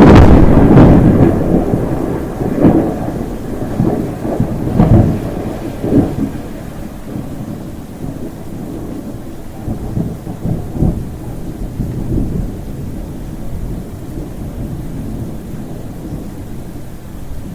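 Thunder: a loud clap right at the start that rolls on in several rumbling peaks over the first six seconds, then dies down into a low, fading rumble, with rain hissing beneath.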